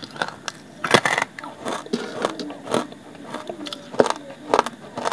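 Hard, dry chunks of grey clay crunched and bitten between the teeth: a run of sharp cracks and crunches, the loudest about a second in.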